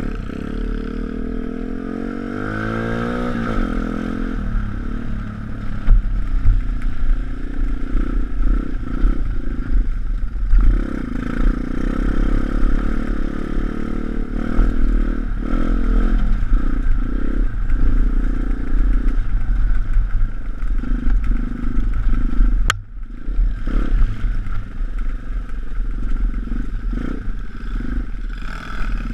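Pit bike's 160cc YX four-stroke single-cylinder engine under a rider, climbing in pitch as it accelerates in the first few seconds, then rising and falling unevenly over rough trail, with wind rumble on the helmet microphone and the bike clattering. A sharp click comes near the end.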